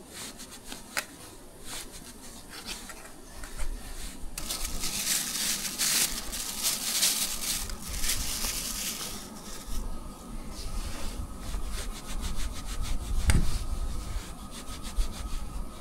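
Knife slicing through food in rapid back-and-forth sawing strokes, sparse at first and dense from about four seconds in, with one sharper knock late on.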